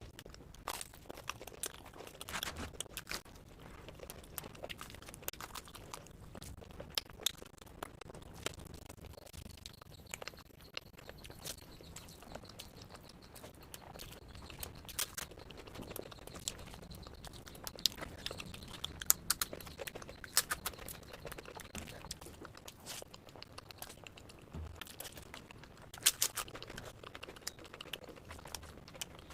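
Close-miked eating: chewing and biting into food, with many short sharp crackles and a few louder bites about two-thirds of the way through and again near the end.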